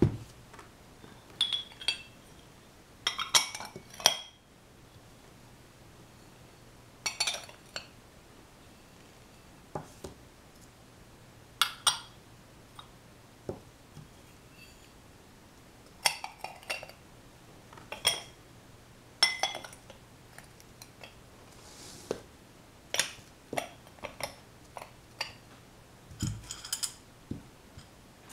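Light clinks of porcelain and glass tableware being handled, a dozen or so short clinks with a brief ring, coming irregularly every second or two.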